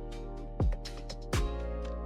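Background music with a steady beat: held chords over deep kick-drum thumps.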